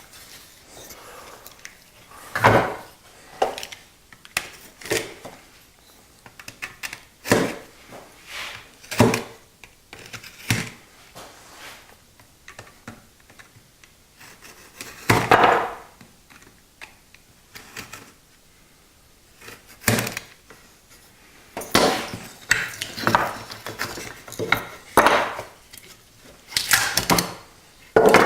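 Painter's tape being pulled off a band-sawn cherry wood blank while the cut-away offcuts are separated from the rough cabriole leg and set down. Irregular short wooden knocks and clatters, with a few longer tearing, scraping noises.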